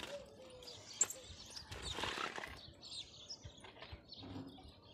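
Faint outdoor ambience: scattered short clicks and knocks, one sharper about a second in, with brief high chirps.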